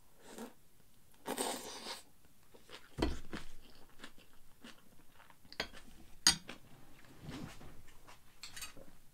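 A person eating with a spoon: chewing and mouth noises, a spoon and a wooden bowl handled against dishes, and several sharp knocks of tableware, the loudest about six seconds in.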